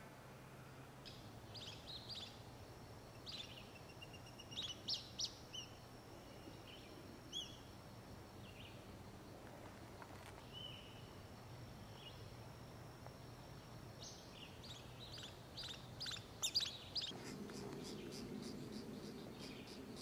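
Faint woodland birdsong: scattered short, high chirps and calls, with a loud cluster about five seconds in and another near the end. A thin steady high tone hangs behind them for stretches, and a fast high ticking trill, like insects, starts a few seconds before the end.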